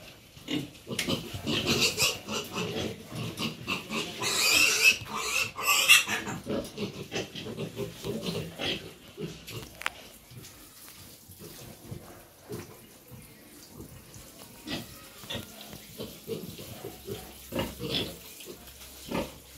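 Piglets squealing shrilly as they are caught and handled in the pen, loudest about four to six seconds in. Quieter, scattered pig sounds follow.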